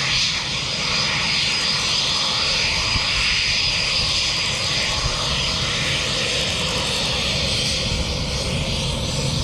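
Aircraft engine running steadily: a thin high whine over a broad rushing noise and a low rumble.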